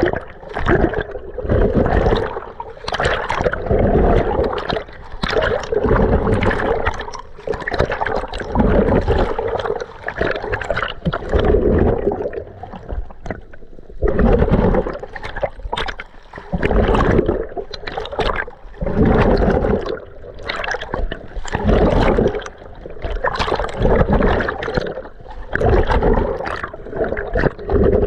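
Water sloshing and gurgling around an underwater camera as a snorkeler swims, in rhythmic surges about every two seconds.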